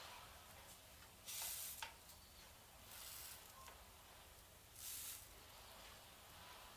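Semolina-and-butter galettes being turned on a hot tadjine. There are three short, faint sizzles as they meet the pan, and a light click about two seconds in.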